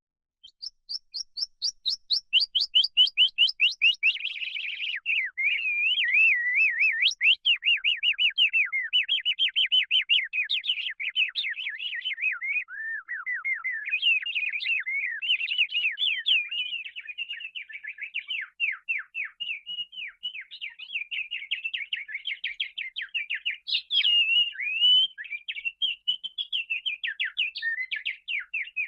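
Canary singing a long, varied song of rapid repeated chirps, trills and warbles, the phrases changing every few seconds.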